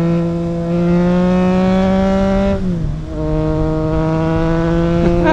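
Triumph Trident 660's three-cylinder engine through a DIY custom exhaust, pulling under acceleration with its pitch slowly rising. About two and a half seconds in the pitch and loudness drop sharply as the rider shifts up a gear, then it pulls steadily again, with wind noise underneath.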